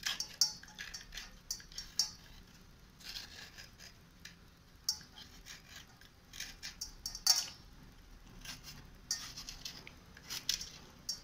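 Wet slate pencils and slate bars being handled and scraped: irregular short scraping strokes and small clicks, the sharpest about seven seconds in.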